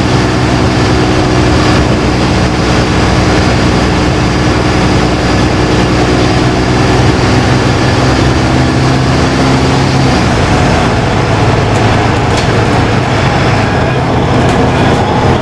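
Interior of a LiAZ-5292.20 low-floor city bus on the move: its diesel engine runs at a steady note over road and cabin noise. About ten seconds in the engine note changes and its upper tones fade. Near the end there are a few light clicks or rattles.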